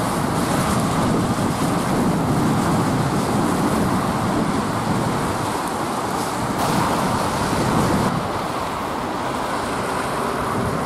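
Road traffic passing on a wet road, a steady wash of car noise that eases slightly near the end.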